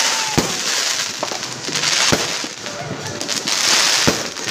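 Fireworks going off: three sharp bangs about two seconds apart, with smaller cracks between them over a steady crackling hiss.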